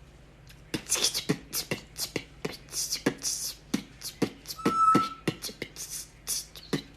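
Congo African grey parrot beatboxing: a quick, uneven run of clicks and pops, about four or five a second. About two-thirds of the way through comes a brief steady whistle.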